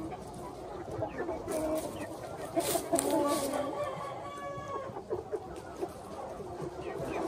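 A flock of young Minh Du chickens clucking and calling over one another while they feed, with a longer drawn-out call at around four seconds in.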